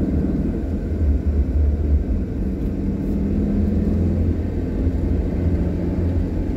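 Steady low rumble of a moving car's engine and tyres on the road, heard from inside the car, with a faint steady hum running through it.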